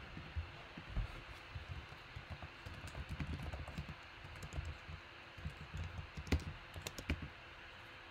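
Computer keyboard typing: a quiet run of irregular key taps, with a few sharper clicks among them.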